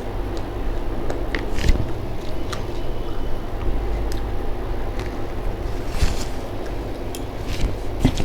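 Biting and chewing a crisp fried split-pea fritter (matar dal bora): scattered crunches and clicks at an uneven pace, over a steady low rumble.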